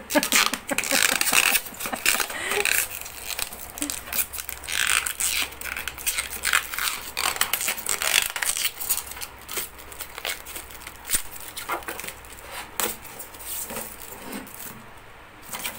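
Protective plastic film being peeled off a stainless steel gas stove body, crackling and tearing in quick irregular snaps, busiest in the first half and sparser later.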